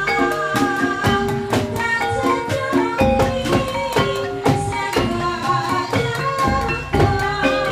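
Live Javanese incling troupe music: a repeating tuned melody over steady drum strokes, with a deep low boom three times.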